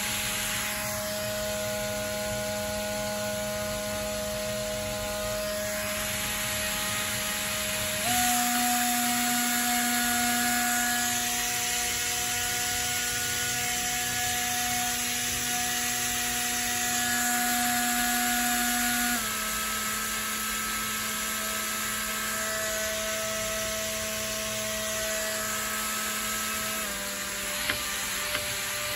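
Small electric motor and propeller on the TRECS pivoting arm, running with a steady whine. The whine steps up in pitch about 8 s in and steps down about 19 s in and again near 27 s, as the commanded drive changes in steps.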